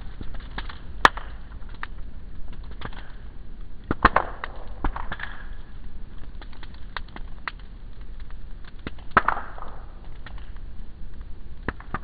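Outdoor wood fire of logs and dry brush crackling with many small snaps, plus louder pops about a second in, about four seconds in and about nine seconds in, some trailing off in a short hiss.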